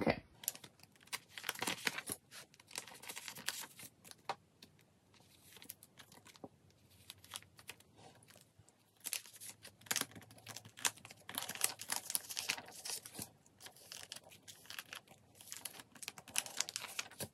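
Plastic crinkling and rustling as sleeved photocards are slid into and shifted within the pockets of a plastic nine-pocket binder page, in irregular scratchy bursts with small clicks and a quieter stretch in the middle.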